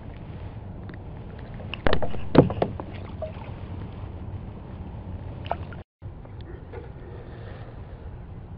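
Steady low water-and-wind noise from a small skiff's open deck, with a brief clatter of sharp knocks and rattles about two seconds in as a small foul-hooked speckled trout is handled and unhooked, and a single click a few seconds later. The sound drops out for an instant shortly before six seconds in.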